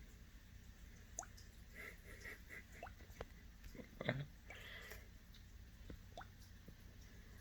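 Faint, irregular popping of gas bubbles in liquid: scattered small plinks that each rise quickly in pitch, with a louder gurgling pop about four seconds in.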